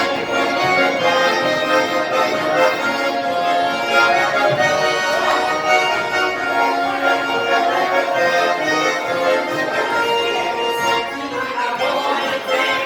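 Russian garmon (button accordion) playing a lively folk dance tune, full chords and melody going without a break.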